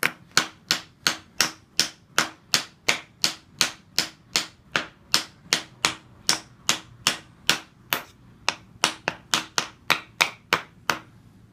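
Hammer driving a nail into wood in a steady run of about thirty light strikes, about three a second, stopping about a second before the end.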